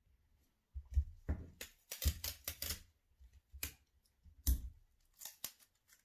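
Paper rustling and crinkling in irregular bursts as a printed paper template is handled and creased, with a couple of soft thumps against the table.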